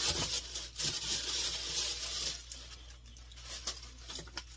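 Hands rummaging through a box, its tissue-paper and plastic packaging rustling and crinkling. It is busiest for the first two seconds or so, then softer, with a few light clicks.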